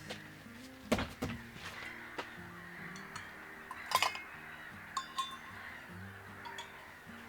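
Soft background music of held low notes, with a few sharp light metallic clinks, about a second in, at four seconds and at five seconds, like camp cookware or utensils being handled.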